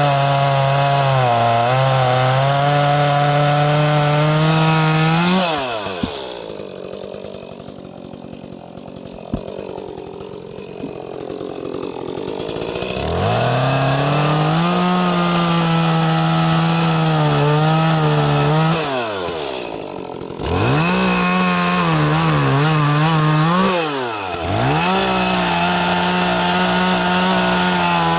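Small 30cc Echo two-stroke chainsaw at full throttle cutting wood, its pitch wavering under load. It drops to a low idle for about seven seconds, then revs back up for three more cuts with short drops to idle between them.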